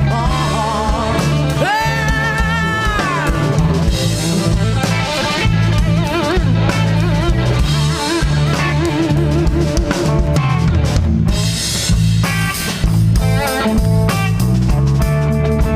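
Live rock band playing an instrumental break: an electric guitar lead with bent, wavering notes over bass guitar and a drum kit.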